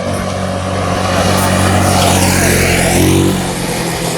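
A motor vehicle driving past close by on the road: a steady engine hum with tyre and road noise that swells toward the middle and eases away near the end.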